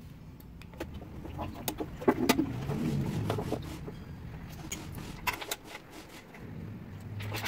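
Scattered metal clicks and clinks from hands and tools working on the motorcycle's tank and carburettor area, over a low, uneven rumble.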